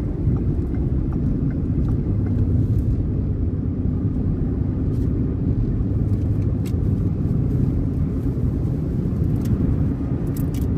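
Steady low rumble of a car's engine and tyres on the road, heard from inside the cabin while driving along a highway.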